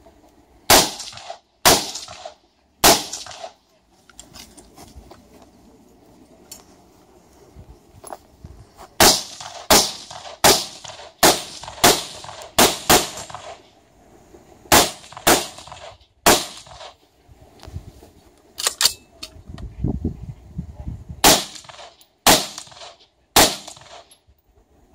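Semi-automatic rifle firing a stage: three shots, a pause, then a quick run of about nine shots roughly half a second apart, then more shots in pairs and singles with short pauses between, about twenty shots in all.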